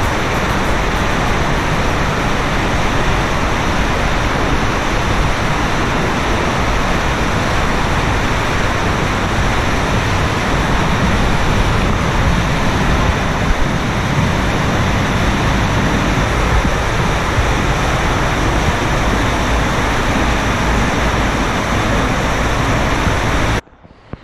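Waterfall pouring through a narrow sandstone gorge into a churning pool: a steady, loud rush of water that cuts off abruptly near the end.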